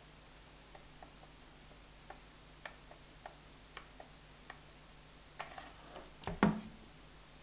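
Faint, irregular clicks, about two a second, as a hot glue gun is worked over a piece of fused plastic beads. Near the end a short clatter and one louder knock as the glued plastic bead piece is pressed down onto another.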